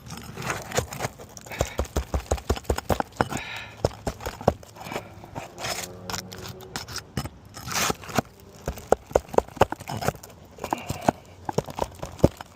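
Hand tool prying and scraping at roof shingles and their nails: a dense, irregular run of sharp clicks and knocks, with scraping and crackling of the stiff shingles.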